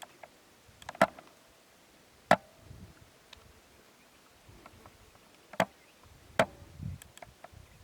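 Four sharp metallic clacks from a Hatsan Vectis .25 lever-action PCP air rifle being fired and its lever cycled, the first two about a second apart near the start and the last two close together later on, some followed by a brief ring.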